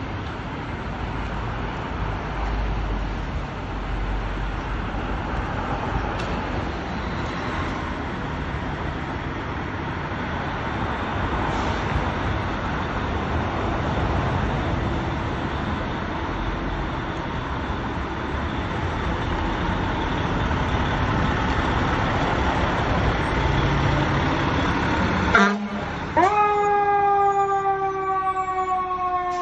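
Fire engine's motor running as the rig pulls out of the station, growing slowly louder. About 26 seconds in, its siren sounds, the pitch falling slowly.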